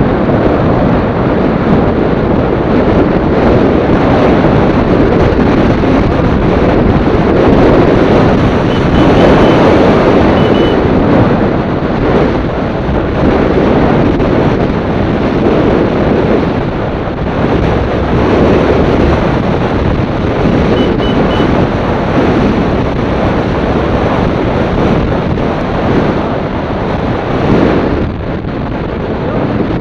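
Wind buffeting the microphone of a camera moving along a road: a loud, continuous rushing that swells and eases every few seconds, with road noise underneath.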